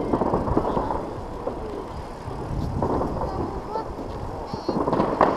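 Wind on the microphone and the murmur of passers-by talking, with fireworks popping and crackling about five seconds in.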